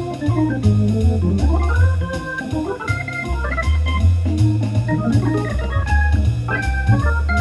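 1966 Hammond C3 tonewheel organ played freely with both hands: a quick run of short melody notes over low bass notes that change about every half second, many notes starting with a sharp click.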